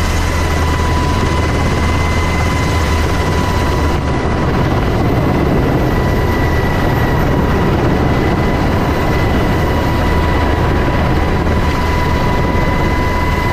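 Helicopter in flight heard from inside its cabin: a loud, steady din with a deep hum and a constant high-pitched whine.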